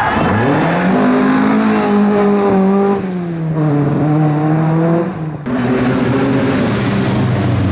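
Rally car engine revving hard under acceleration, pitch climbing, dipping about three seconds in and breaking off sharply about five and a half seconds in at gear changes or lifts off the throttle, then pulling again.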